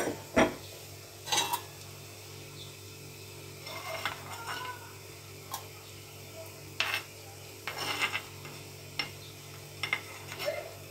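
Metal spoon knocking, clinking and scraping against the rim and inside of an earthenware pot while the foam is skimmed off mutton broth coming to the boil. There is a sharp knock at the start and scattered clinks after it, over a steady low hum.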